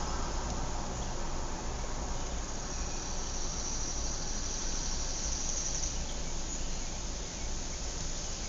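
Suburban outdoor ambience: a steady low background rumble and hiss. A high insect trill, like a cricket, rises out of it from about two and a half seconds in and stops about six seconds in.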